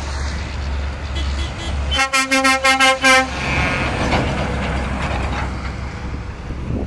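Heavy trucks' diesel engines rumbling as a tipper truck drives past. About two seconds in, a truck horn is sounded in a rapid string of short toots, about five or six a second, for just over a second.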